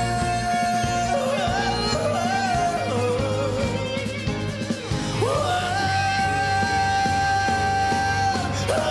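A male singer's husky voice holding long, high sung notes over a live band, sliding up into a long sustained note about five seconds in.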